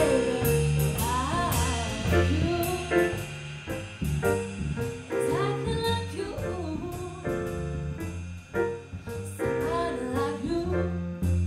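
A teenage girl sings a jazz song into a microphone, backed by a small jazz combo of digital piano, upright double bass and drums with cymbal strikes. The band plays on between her sung phrases.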